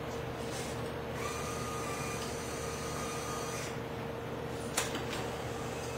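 Small electric motor of a battery-powered mobile roll lifter whining steadily for about two and a half seconds, over a constant hum. A single sharp click comes near the end.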